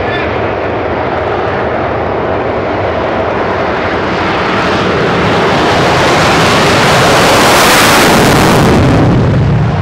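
Saab 37 Viggen's Volvo RM8 turbofan at full afterburner during the takeoff roll: a loud, continuous jet noise that builds through the first half, is loudest as the jet passes close about eight seconds in, then falls away near the end.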